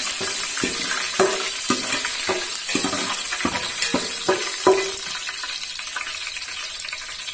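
Curry leaves sizzling in hot mustard oil in a large metal pot, while a perforated steel skimmer scrapes and knocks against the pot about twice a second as they are stirred. The knocking stops about five seconds in, and the sizzling goes on.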